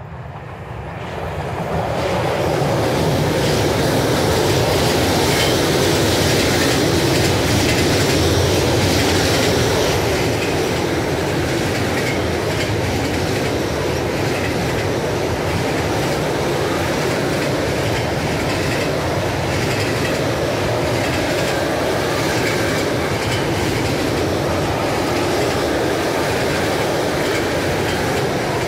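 Bombardier Traxx electric locomotive 386 016 passing close by with a long container freight train. The noise builds quickly over the first two seconds as the locomotive arrives, then settles into the steady rolling and rail clatter of the container flat wagons going by.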